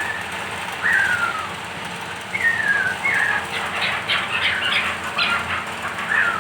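Chukar partridge calling: several separate falling whistled notes, and a quick run of short sharp notes about halfway through.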